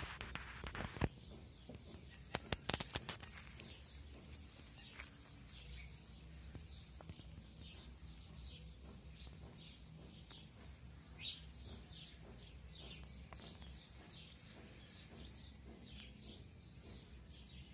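A small bird chirping over and over, short high chirps about two a second, faint. A few sharp clicks in the first three seconds are the loudest sounds.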